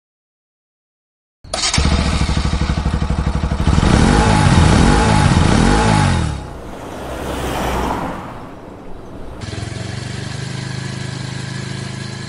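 Motorcycle engine catching abruptly about a second and a half in and running with a fast rhythmic beat, then revved up and down about three times. A rushing whoosh rises and falls, and the engine settles into a steady run.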